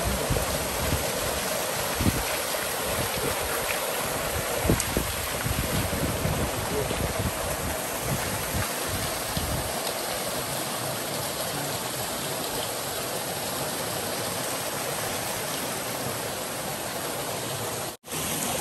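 Forest stream and small waterfall rushing steadily, with a few low knocks in the first half. The sound drops out briefly near the end.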